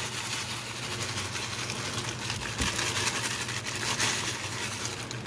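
Shoestring potato sticks pouring out of a plastic bag onto a pan of melted cheese: a steady, dry rattling hiss of many small pieces landing, over a low steady hum.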